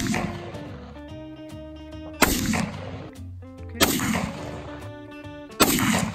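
M1 Garand .30-06 semi-automatic rifle firing: the dying ring of one shot at the start, then three more single shots roughly a second and a half to two seconds apart, each ringing out briefly. Background music plays under the shots.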